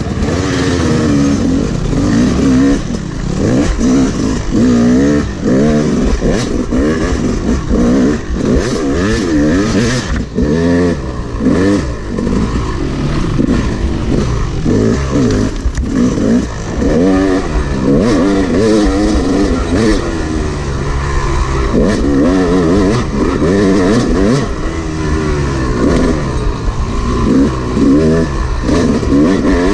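Yamaha YZ250 two-stroke dirt bike engine under way on a rough trail, revving up and down over and over as the throttle is opened and closed.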